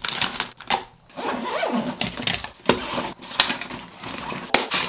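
Hand-packing sounds: a clear plastic bag and small toiletry items are handled and put into a soft fabric toiletry bag, giving rustling and irregular light knocks and clicks.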